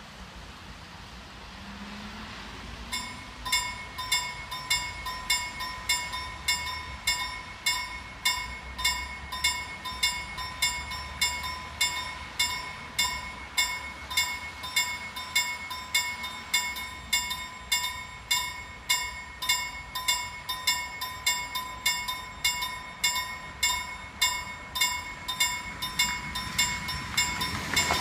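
Level-crossing warning bell starting about three seconds in and ringing in an even, rapid series of pitched strokes, a little under two a second. It warns road users that a train is approaching and the barriers are about to lower.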